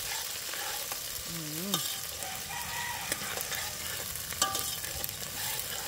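Chopped seasoning frying in hot oil in a metal pot over a wood fire: a steady sizzle, with a spoon stirring and knocking against the pot a few times.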